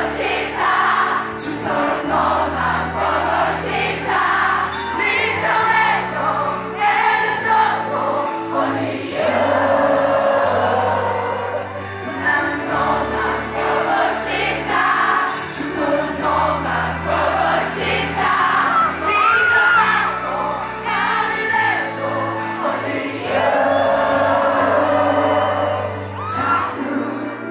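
Live rock band playing with a male lead singer singing into a microphone, recorded from among the audience, whose voices blend into the mix.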